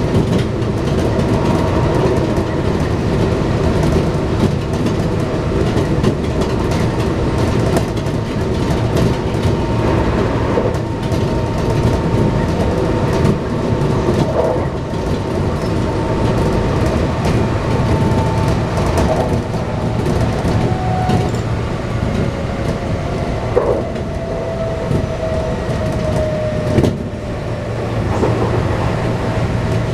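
Running noise inside a Kintetsu electric train: a steady rumble with scattered wheel clicks over rail joints, and a thin motor whine that slowly falls in pitch through the second half. Near the end there is a brief louder rush as an oncoming train passes.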